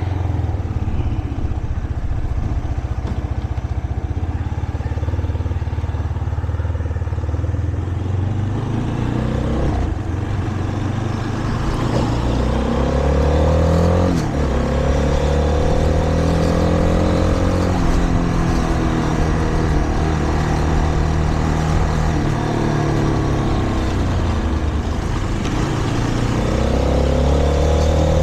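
Shineray Flash 250F motorcycle engine running under way, pulling up through the gears: its pitch climbs and drops back at each shift, several times from about twelve seconds in and again near the end.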